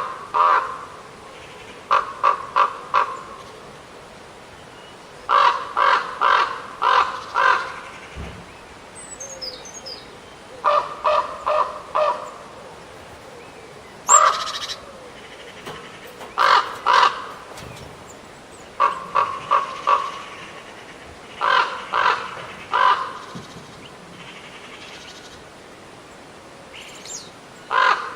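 A corvid calling in repeated series of three to five short caws, a new series every few seconds, with one single louder call about 14 seconds in.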